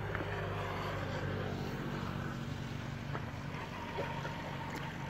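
Steady low hum of a motor running, with a few faint light clicks over it.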